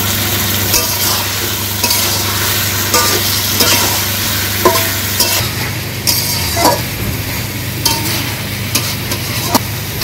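Pieces of boal fish (wallago catfish) being stirred and fried in a pan of fried spice paste: a steady sizzle, with the spatula scraping and knocking against the pan now and then.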